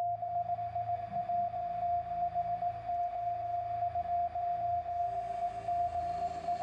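Electronic concert intro: a steady, pure high tone held over a low drone, with a faint hiss joining about five seconds in.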